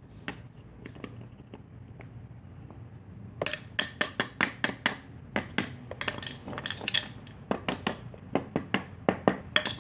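Sharp clicks and light knocks of hard fan parts being handled and fitted as a Lasko box fan is put back together: a few faint ones at first, then about three or four a second, unevenly spaced, from a little past a third of the way in.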